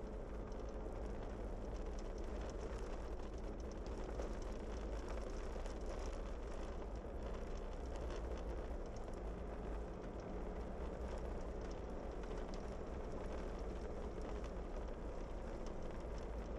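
Vehicle driving steadily on a snow-packed gravel road: continuous tyre and road noise over a low engine rumble, with a fine crackle of gravel and grit under the tyres.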